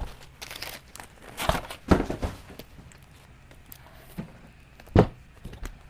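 Cardboard record box and shrink-wrapped vinyl LPs being handled on a table: a scattering of dull knocks and rustles, the sharpest near the end.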